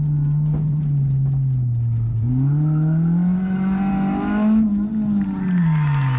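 Race car engine under way: its pitch sags, then climbs steadily from about two seconds in to a peak near four and a half seconds, and falls away again near the end as the driver lifts.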